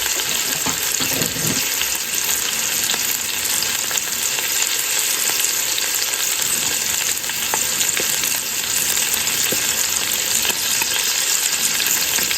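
Chuck roast searing in hot bacon grease in a Ninja Speedi pot on its sear/sauté setting, sizzling steadily with scattered small pops of grease.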